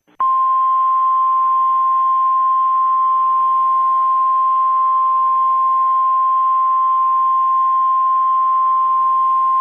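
Emergency alert attention tone: a single loud, steady tone near 1 kHz that starts abruptly just after the opening and holds one pitch throughout, over faint hiss. It is the long alert tone that comes before the spoken message of an emergency broadcast alert.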